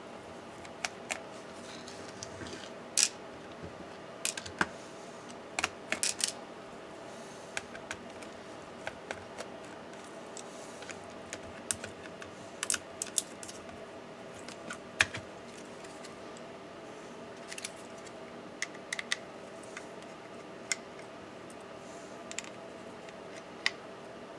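Irregular sharp clicks and taps of plastic and metal parts being handled and pried loose by hand and with a small screwdriver inside an opened MSI GP63 Leopard 8RD laptop. Near the end the 2.5-inch hard drive is lifted out in its metal caddy. A faint steady hum runs underneath.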